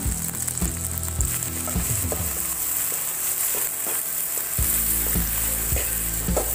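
Sliced onions and dried red chillies sizzling in hot oil in a pan, stirred and scraped through with about two strokes a second.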